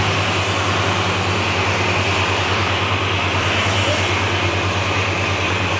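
Garment thread-cutting machine running steadily: a constant deep hum with an even airy rush over it, with no change in speed or load.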